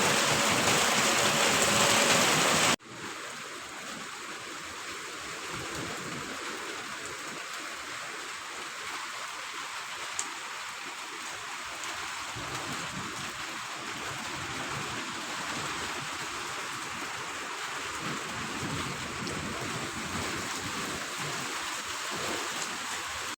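Rain mixed with hail falling in a steady hiss. It is loud and full at first, then drops abruptly about three seconds in to a quieter, thinner hiss, with a single sharp tick near the middle.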